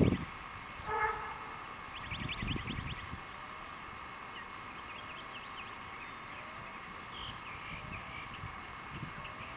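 Quiet outdoor ambience with a short pitched call about a second in, then a fast ticking trill lasting about a second with a brief puff of wind on the microphone, and after that only a steady faint hiss.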